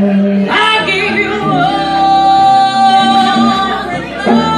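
A woman singing a blues song live with band accompaniment including guitar, holding one long note through the middle.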